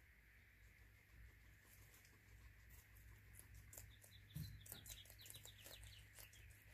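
Guinea pigs eating pellets and vegetables and shifting in wood-shaving bedding: quick faint crackles and crunches, busiest in the second half, with one soft thump about four seconds in as a guinea pig steps onto the food bowl.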